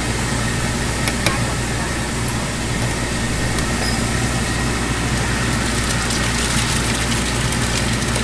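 Steady low hum and hiss of a street-food flat-top griddle station, with strips of meat and then a fried egg sizzling on the hot plate, and a sharp click about a second in.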